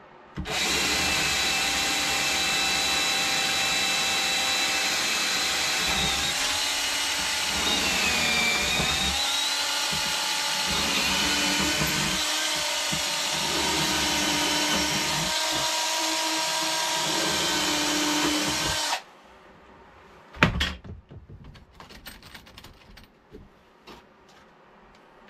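Power drill running continuously while drilling holes in wood, its motor pitch dipping briefly under load partway through, then cutting off suddenly. A single sharp knock follows, then light clicks and rubbing.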